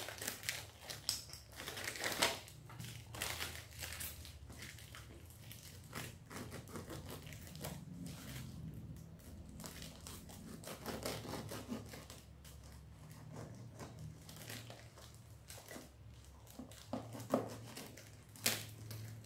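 Plastic wrapping and packing tape crinkling and tearing as a parcel is cut open with a small knife: irregular rustles and crackles, a few sharper ones near the end, over a steady low hum.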